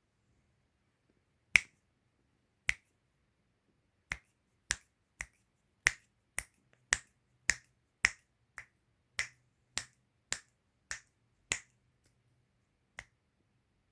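Finger snapping: a series of about seventeen sharp snaps, at first a second or more apart, then roughly two a second, with a last one after a short gap near the end.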